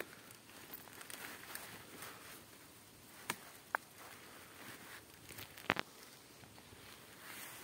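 Faint rustling of dry fallen leaves as fly agaric mushrooms are pulled up by hand from the leaf litter, with three sharp clicks or snaps in the middle, the loudest about two-thirds of the way through.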